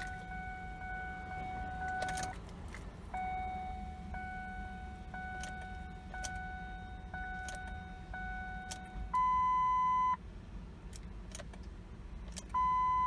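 2008 Ford Edge's dashboard warning chimes with the key in the ignition: a steady chime tone, then about six chimes roughly a second apart, then two louder one-second beeps, with scattered clicks of the keys. The engine does not start, which the owner puts down to grounding problems from water under the carpet that keep the PCM from talking to the dash.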